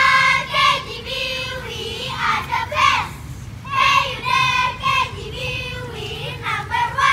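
A children's cheerleading squad chanting a cheer in unison, high young voices in short shouted phrases with brief breaks between them.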